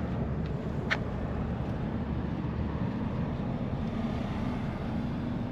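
Steady low outdoor rumble with a single short sharp click about a second in.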